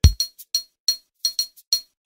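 Percussion of a Congolese folkloric band: a bright, ringing clink struck in a quick, steady pattern, about four to five strikes a second, opening with one deep drum beat.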